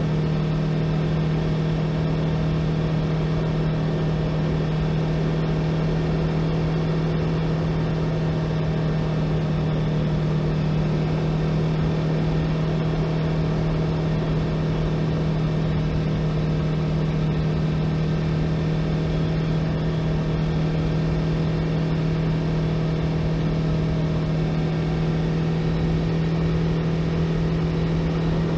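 2018 Yamaha YZF-R3's parallel-twin engine running at a steady, unchanging pitch while riding, with the rush of noise underneath it.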